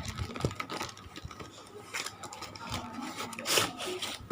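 Hands handling and opening toy packaging, with rubbing, scraping and small clicks, and a louder scrape about three and a half seconds in.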